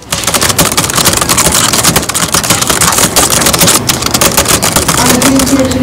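Loud, dense crackling hiss, like heavy rain or static, that cuts in suddenly and stops just as suddenly at the end.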